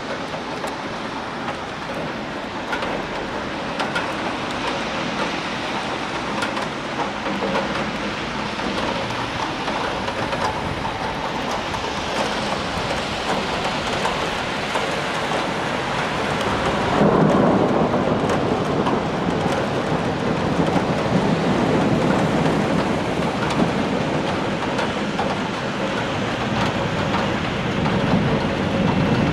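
Rain falling steadily in a thunderstorm. About halfway through, a long low rumble of thunder swells up and rolls on.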